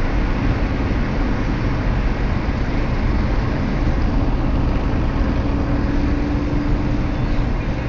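Steady road and engine noise of a car driving at highway speed, heard inside its cabin. A faint steady hum rises out of it in the second half.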